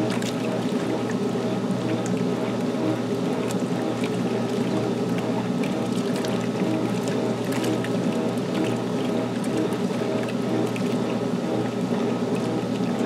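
1978 Maytag LA806 top-load washer running mid-cycle: a steady motor hum with water moving in the tub and small clicks and splashes.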